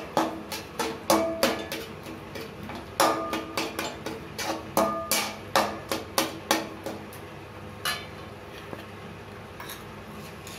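Metal spatula knocking and scraping against a metal kadai while stirring a thick tomato-onion masala. There is a rapid run of ringing clanks for about the first seven seconds, then only a few light taps near the end.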